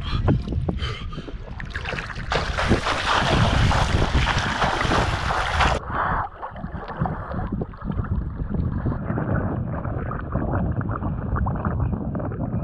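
Sea water splashing and sloshing around an action camera held at the surface by a swimmer, with wind noise on its microphone. The splashing hiss is loudest from about two to six seconds in, after which the sound turns duller.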